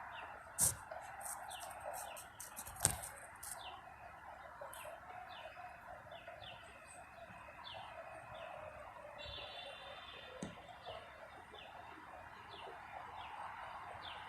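A bird calling over and over, a steady series of short falling chirps, over steady background noise. Two sharp clicks come in the first three seconds.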